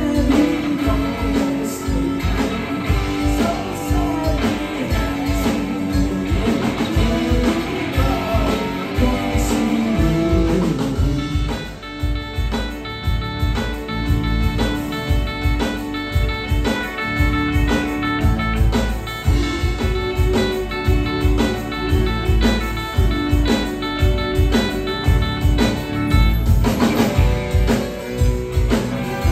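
Live band music: electric guitar, bass guitar, drum kit and keyboard playing a song together, the guitar clearly heard.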